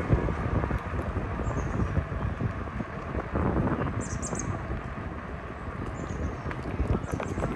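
Wind rushing over the microphone and the rumble of bicycle tyres on the road while riding. Birds chirp briefly above it, most clearly in a short burst about four seconds in.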